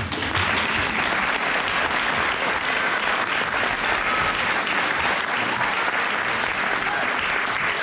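Audience applauding steadily, a dense clapping that starts right as the dance music stops.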